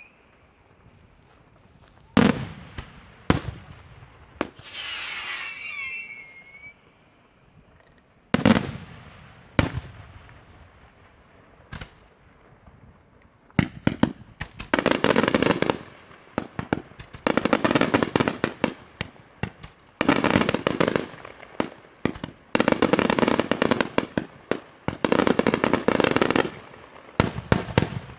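Daytime fireworks show: a few single loud bangs spaced a second or more apart, with a whistling shell about five seconds in. From about halfway, rapid volleys of crackling reports come in bursts of a second or two, about every two to three seconds.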